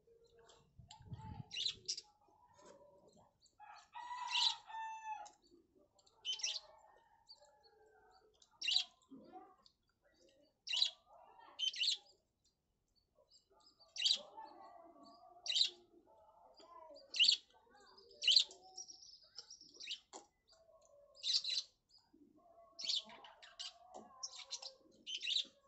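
Birds chirping: short, high chirps repeating every second or two, with one longer, lower call about four seconds in.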